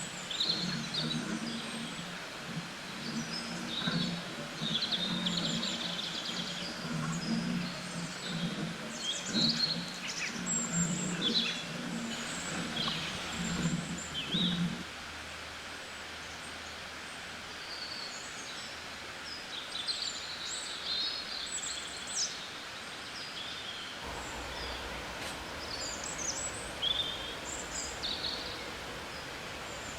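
Several wild birds chirping and singing in short high calls and trills, scattered throughout over a steady background hiss. A low pulsing hum runs under them in the first half and stops about halfway through.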